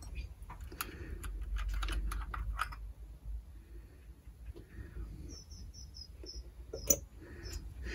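Light clicks and taps of small chainsaw parts being handled on a bench. Partway through, a small bird chirps a quick run of about seven short high notes, and one sharp click comes near the end.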